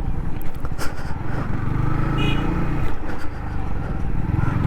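Yamaha MT motorcycle engine running steadily under way, with wind rushing past.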